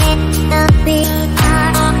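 Background music with a steady beat: a deep drum hit about every 0.7 seconds under sustained chords.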